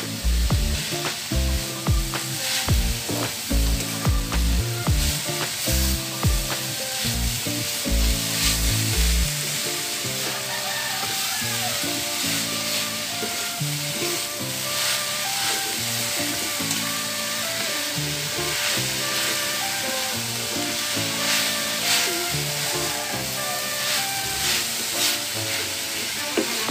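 A wooden spoon stirring and scraping grated young coconut and brown sugar in a metal wok, with a light sizzle as the filling cooks. Background music plays under it, its bass beat dropping out about nine seconds in.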